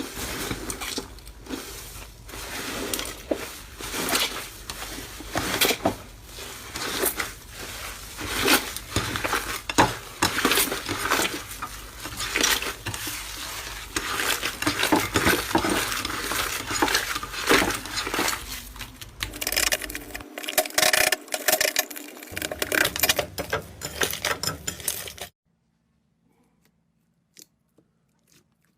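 Slime being squeezed and poked by hand, a dense run of crackling clicks and pops. The sound changes character about 20 s in, then cuts off sharply near the end, leaving only a few faint clicks.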